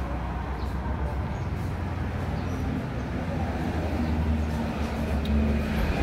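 Road traffic passing on a main road: a steady rumble of vehicle engines and tyres, with one engine's hum growing louder in the second half.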